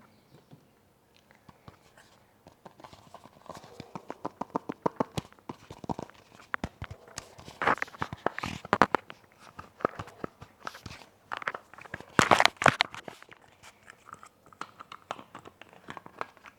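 Close-miked crackling and clicking made on a headset microphone, in irregular bursts with two louder flurries in the second half.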